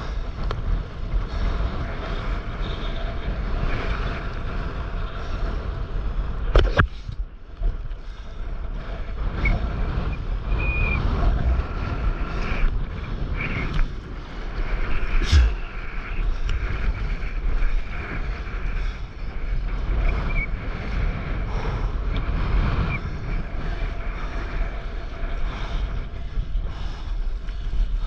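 Wind buffeting the microphone, with the rush and splash of choppy sea water around a stand-up paddleboard riding waves. Two sharp knocks cut through, about a quarter of the way in and again about halfway.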